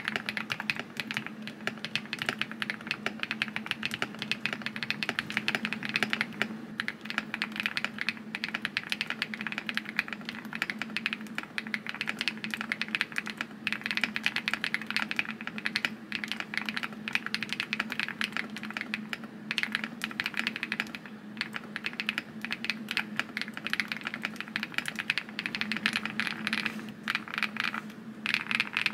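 Continuous fast typing on a QK75N mechanical keyboard fitted with Neo White linear switches on an FR4 plate, with foam in the case and Coffee Cat keycaps: a dense, unbroken stream of keystroke clacks.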